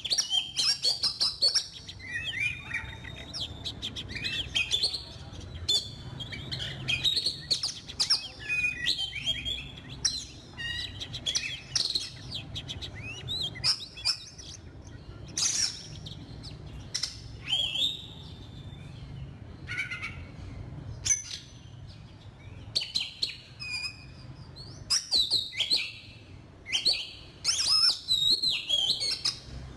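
Oriental magpie-robin song: a busy stream of varied short whistled phrases with sharp clicks between them, busiest near the start and again near the end. It is a recorded decoy call (เสียงต่อ) played to lure birds in for trapping.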